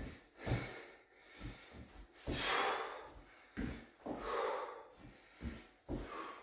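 A man breathing hard from exertion during reverse lunges, with three forceful, breathy exhales. Between them come soft low thumps of his feet stepping back and forward on the floor.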